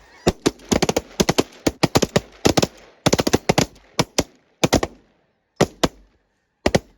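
A volley of shotgun fire from several hunters shooting at once at incoming snow geese. The shots come rapid and overlapping for about five seconds, then a few scattered shots follow near the end.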